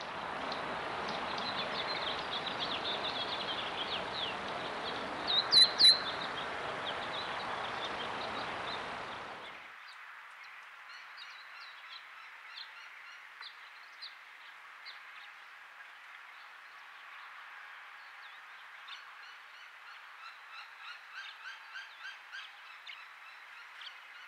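Birds chirping and calling outdoors over a steady rushing noise. Two loud, sharp notes come about five and a half seconds in. After about nine seconds the rush drops away and only scattered short chirps remain, coming in quicker runs toward the end.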